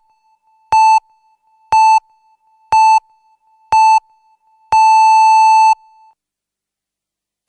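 Electronic countdown pips in the pattern of a radio time signal: a short beep at one steady pitch once a second, four times, then a longer final beep lasting about a second.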